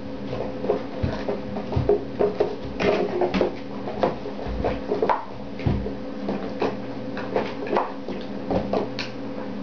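Puppies scuffling and play-fighting on a mattress: irregular soft thumps, scratches and rustles of bedding, several to the second, over a steady low hum.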